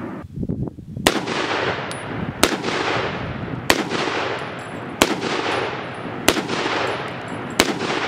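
Ohio Ordnance BAR M1918A3 rifle in .30-06 fired from the shoulder: six single shots at an even pace, about 1.3 seconds apart, each with a short ringing tail.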